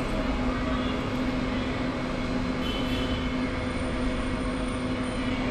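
Steady mechanical hum over a low, even rumble, with a constant pitched drone.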